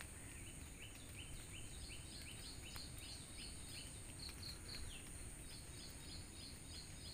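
A bird calling in a quick run of short repeated notes, about three a second, faint over a steady high drone and a low background rumble.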